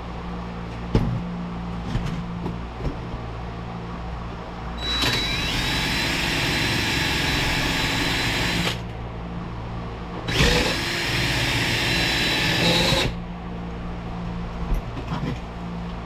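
Electric drill drilling out the rivets in a vent window frame, in two runs of about four and three seconds with a steady high whine that climbs to speed at the start of the first run.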